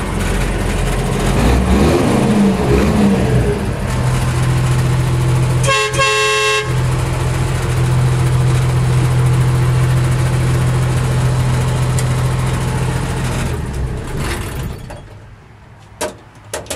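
M35A2 army truck's multifuel diesel engine running, heard from inside the cab. About six seconds in, the truck's horn sounds once, briefly. Near the end the engine shuts off, leaving a few clicks.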